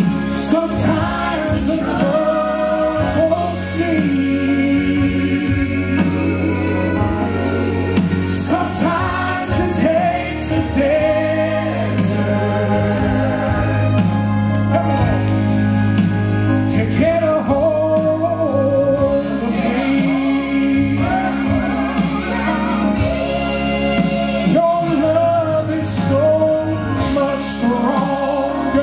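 Man singing a Southern gospel song into a handheld microphone over sustained instrumental accompaniment.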